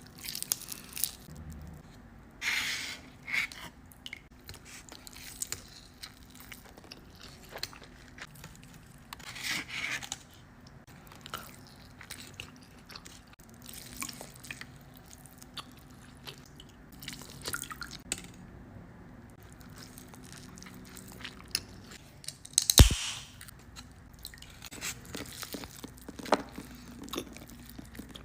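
Close-miked chewing and crunching of birria tacos, their fried tortillas crackling in irregular bites and chews, with one sharp loud crack about three-quarters of the way through.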